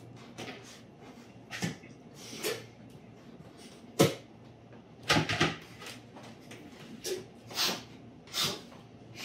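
A handful of short, scattered gagging and groaning sounds from people chewing something they find disgusting. The loudest is a sudden sharp one about four seconds in.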